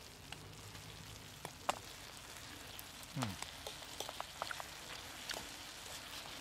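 A chicken stir-fry sizzling in a metal pan, with a fork clicking and scraping against the pan as it is stirred. A brief low falling sound comes about three seconds in.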